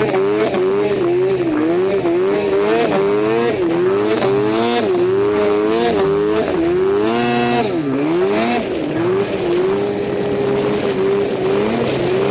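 Arctic Cat M1000 snowmobile's two-stroke engine running under load in deep powder, its revs rising and falling again and again. The revs drop sharply about eight seconds in, then hold steady for a couple of seconds.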